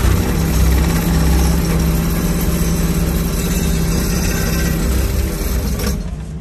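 Cat 308 mini excavator's engine and hydraulics running hard, heard from inside the cab, while old vinyl seawall sheets are pulled out. It is a loud, steady drone with a constant hum that cuts off abruptly about six seconds in.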